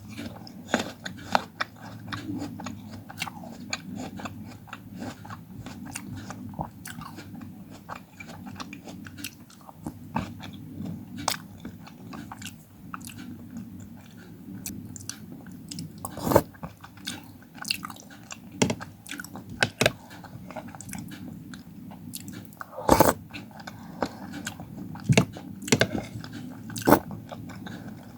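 Close-miked eating: crunchy bites and chewing of fruit, with irregular sharp crunches throughout and a few louder bites in the second half, over a steady low hum.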